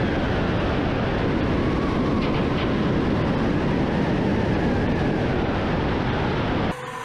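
Steady, loud rush of airflow and jet-engine noise picked up by a camera on the outside of a Su-25 attack aircraft's fuselage in low, fast flight. It cuts off suddenly near the end, dropping to a quieter sound.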